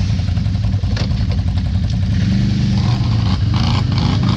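Can-Am ATV engine running at steady revs.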